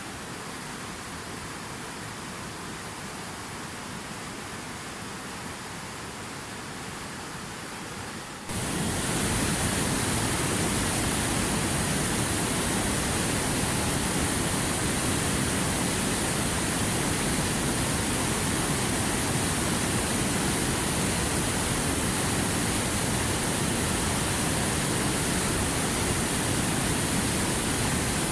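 Steady rushing water of a waterfall. About a third of the way in it jumps abruptly louder and fuller, with a stronger high hiss, and then stays steady.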